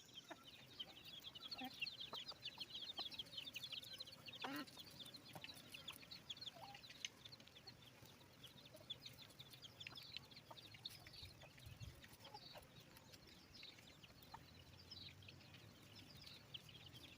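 Faint bird calls: many short, high chirps in quick succession, thickest in the first few seconds and then scattered, with an occasional lower call.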